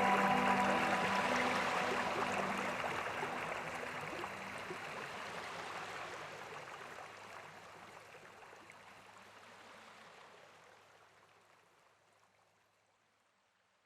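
Rushing water of a cascading waterfall, an even hiss with soft background music under it at first, fading out steadily to silence about twelve seconds in.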